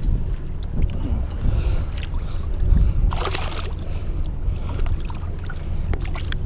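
Wind rumbling steadily on the microphone, with water sloshing as a bass is held in the lake and released, and a short splash about three seconds in.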